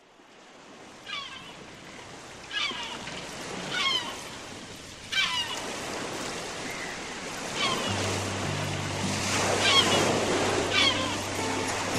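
Sea surf fading in from silence, with short falling calls repeating over it every second or so. About eight seconds in, low sustained music notes enter beneath it.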